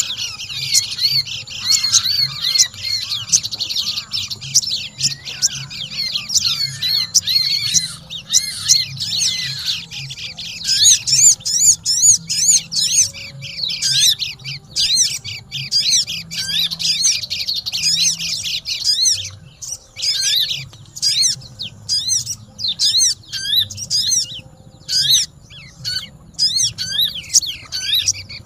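Pleci (white-eyes) and sogon birds chattering together: rapid, high, overlapping chirps that keep on without pause, busiest in the second half.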